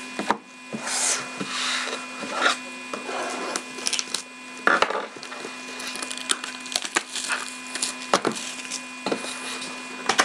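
Trading cards and their cardboard box and foil packs being handled: irregular rustling and scraping with sharp taps and clicks, over a steady electrical hum.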